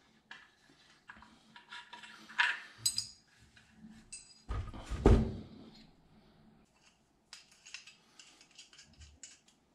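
Small metallic clicks and clinks of a hex key and screw fittings being worked loose on a Grohe SmartControl concealed mixer body, with a ringing clink about three seconds in. A loud thump comes about five seconds in as the unit is set down on the counter.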